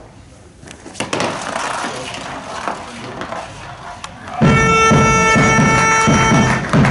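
A stock on a summer running sole gliding down the paved lane with a steady rasping rumble. About four seconds in, a loud horn sounds one steady note for about two seconds, over short shouts.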